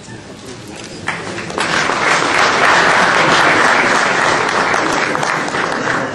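Audience applauding. The clapping starts about a second in, swells to full strength and eases off slightly near the end.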